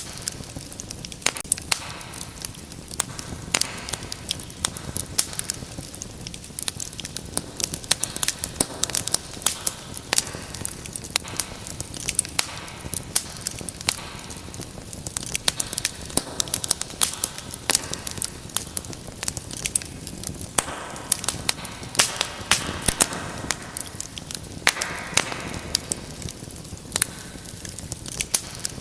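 Wood fire in a fireplace crackling steadily, with many sharp, irregular pops and snaps over a soft low rumble of flame.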